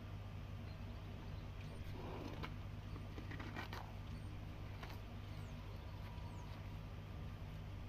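Quiet outdoor sound with a steady low hum underneath. A few soft rustles and knocks come about two to four seconds in, and faint short bird chirps come a little later.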